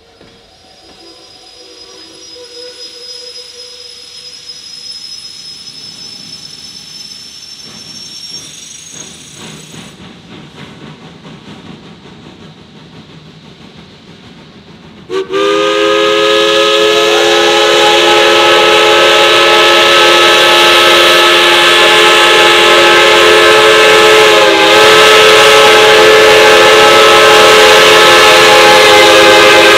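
Geared steam locomotive's chime whistle sounding one long, very loud blast of several notes at once, starting suddenly about halfway in and holding to the end, with a brief dip in pitch partway through. Before it there is only quieter background sound.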